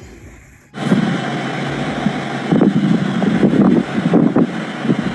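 Gusty wind buffeting the microphone in a snowstorm, a loud irregular rumble that cuts in suddenly about a second in.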